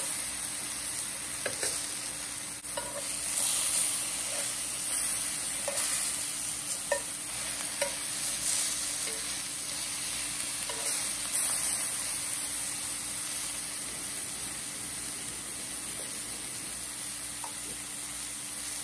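Lemon slices sizzling in olive oil in a cast-iron skillet, a steady hiss as they char and soften, with scattered small pops and clicks.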